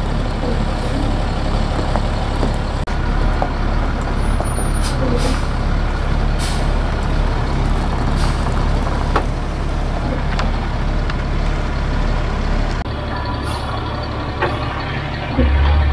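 Diesel dump truck engine running steadily as the truck backs in slowly, with a few short air hisses a few seconds in. The engine note drops about 13 seconds in, then surges briefly and loudly near the end.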